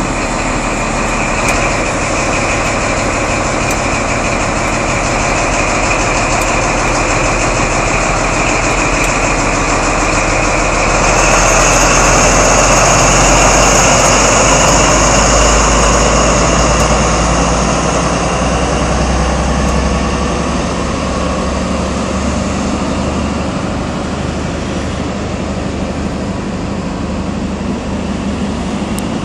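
Diesel engine of a Class 43 InterCity 125 (HST) power car working hard as the train pulls away from a standstill. It grows louder about eleven seconds in, with a high whistle over it for several seconds, then eases and fades as the power car draws off and the coaches pass.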